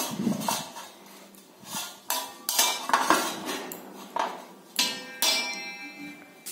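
Hand rubbing ghee over a brass plate: skin sliding on the metal, with a run of knocks and clinks as the plate shifts, several of them ringing briefly.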